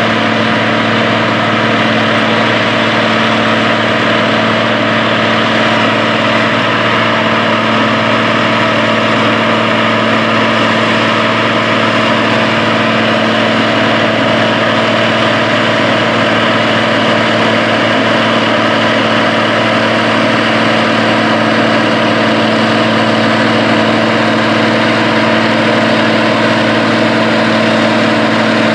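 John Deere WA-14 four-wheel-drive tractor's diesel engine running steadily under load as it pulls a 12-bottom plow, a constant, even note.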